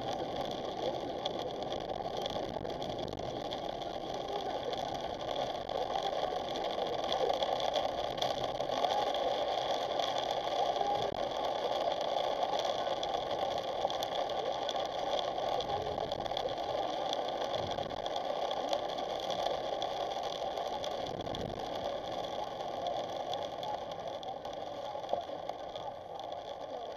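Car driving on a wet road in heavy rain, heard from inside the cabin through a dashcam: steady tyre and road noise with rain on the windshield, easing slightly near the end.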